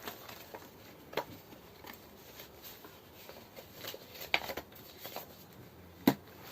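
Quiet handling of packaging: paper and cardboard rustling with a few light clicks and knocks, the sharpest knock near the end.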